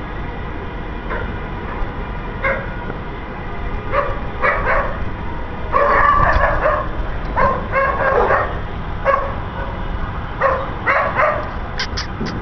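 A dog barking repeatedly in short bursts, starting about two seconds in and coming every half second to a second, over a steady low rumble.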